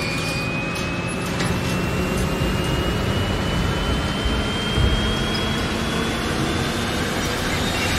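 Intro sound effect: a steady low rumble under a thin whistling tone that rises slowly in pitch, building up.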